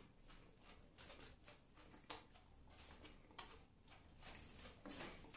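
Near silence with faint, irregular mouth clicks and chewing as a person eats a Naga ghost pepper.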